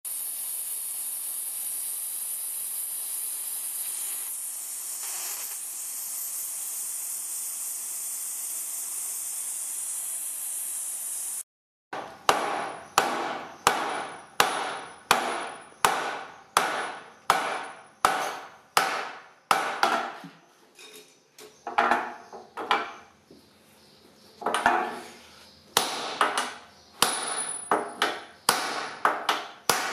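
A gas torch hissing steadily as it heats a steel rivet red-hot. After a cut, a hammer strikes a rivet snap held on the hot rivet head, about two blows a second with a few short pauses, closing the rivet.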